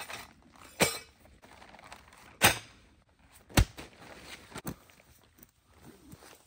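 Handling a packed canvas bell tent and its pole bag on a foil tarp: three sharp thunks and knocks spread over a few seconds, with softer rustling between and a smaller click later on.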